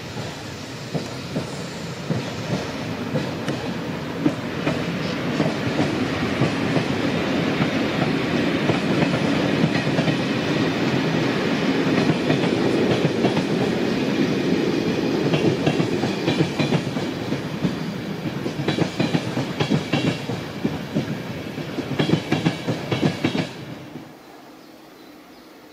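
Long electric-hauled passenger train's coaches rolling past at speed, a dense rumble of wheels on rail with rhythmic clicking as the bogies cross rail joints. The sound cuts off suddenly about 24 seconds in, leaving a much quieter steady background.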